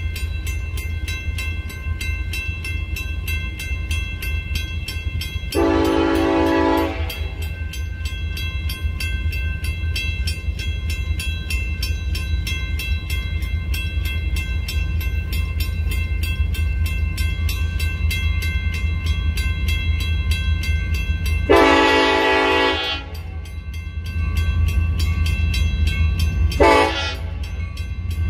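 Union Pacific freight locomotive's air horn sounding three times: a long blast, a second long blast about fifteen seconds later, then a short one, part of the grade-crossing warning signal. Under it a railroad crossing bell rings steadily, with a low rumble.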